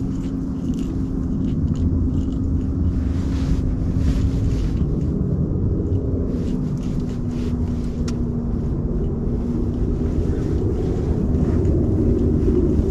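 A motor running steadily: a low rumble with a steady hum through it, and faint clicking over the top.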